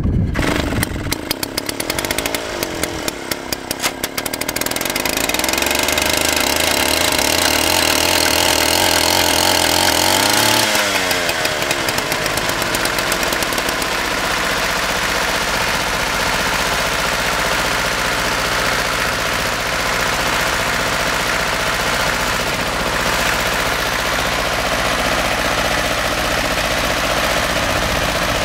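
A small two-stroke chainsaw engine, fitted as a starter, fires with rapid clatter and revs up, cranking the DVSŠ-16 tractor's two-cylinder air-cooled diesel; about ten seconds in the diesel catches and the sound changes to the tractor engine running steadily at idle.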